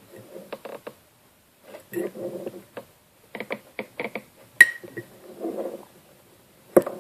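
A fork scraping and poking at a microwave mug cake, with short taps and clicks against the mug and one sharper clink with a brief ring about halfway through.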